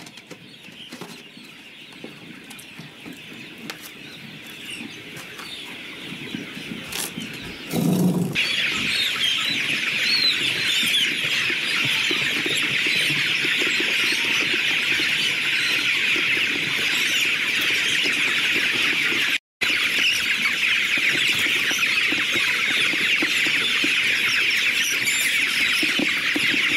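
A large flock of young chicks peeping together, a loud, dense, steady chorus that starts suddenly about eight seconds in. Before that the peeping is much fainter.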